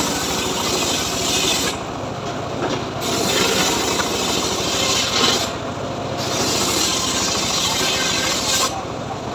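Homemade bench circular saw ripping a log lengthwise, the blade's loud hissing cut running over a steady motor hum. The high cutting noise eases off briefly three times.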